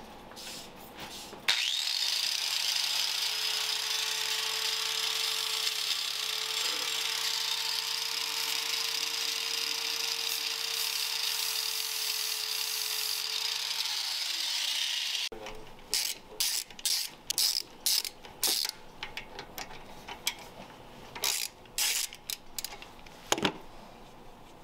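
Drill Master corded 4-1/2 in angle grinder switched on and run steadily, grinding a metal piece held in a vise. It winds down slightly and cuts off about fifteen seconds in. Then come a series of sharp, irregular clicks from a ratchet wrench.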